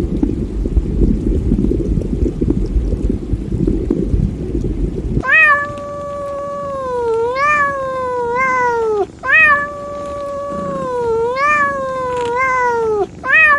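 A cat yowling, drawn-out wavering caterwaul calls about four seconds each, two in a row and a third starting near the end. For the first five seconds before them, only a low rumbling noise.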